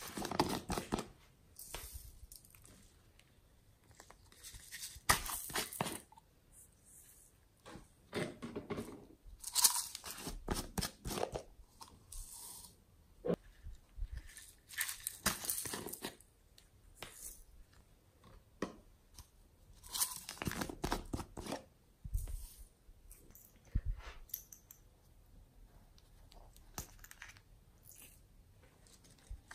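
Hands handling and opening small plastic containers: squeezing a soft plastic bottle and working the lids, giving irregular bursts of crinkly rustling and clicks with quiet gaps between.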